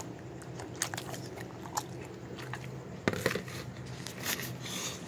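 A dog chewing and eating food: irregular crunching clicks and mouth sounds, the loudest about three seconds in.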